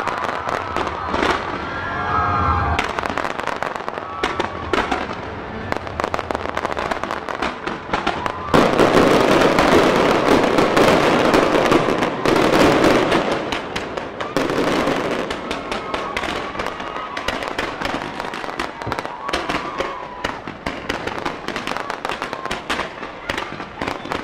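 Fireworks crackling and popping in fast, dense bursts. A louder rush of noise comes about a third of the way in and lasts some five seconds.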